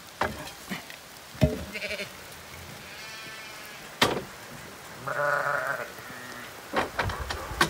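Zwartbles sheep bleating three times, the longest call about five seconds in, with several sharp knocks in between.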